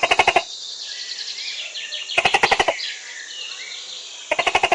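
Three short, rapid rattling animal calls about two seconds apart, over background birdsong.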